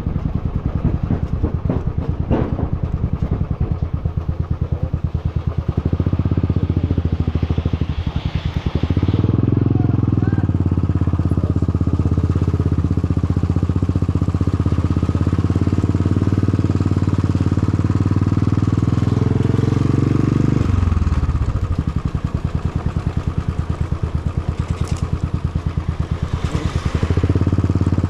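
Motorcycle exhaust running very loud while riding, a low pulsing beat. It swells about nine seconds in as the revs come up, holds, then falls away around twenty seconds in.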